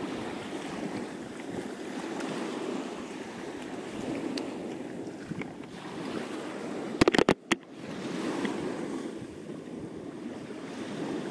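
Small waves washing onto a shell-strewn beach in a steady wash. About seven seconds in, a quick cluster of sharp knocks cuts through, the loudest moment.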